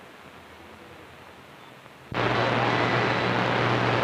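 CB radio receiver hissing faintly with static, then about two seconds in a strong carrier keys up on the channel: a sudden loud rush of noise with a steady low hum under it.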